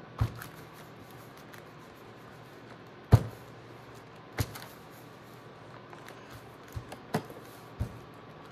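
A handful of sharp knocks and taps over a faint steady hum as a clothes iron is moved about and set down on the table. The loudest knock comes a little over three seconds in, and three lighter ones come close together near the end.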